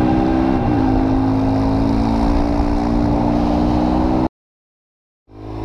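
Supermoto motorcycle engine running steadily at cruising speed under a rush of wind noise, its note dipping slightly about half a second in. Near the end the sound cuts out to dead silence for about a second, then fades back in.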